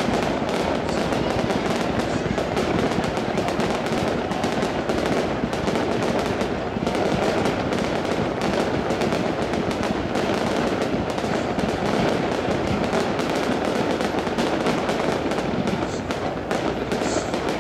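Fireworks display: a dense, unbroken barrage of shell bursts and crackle, many bangs a second running together into a steady din.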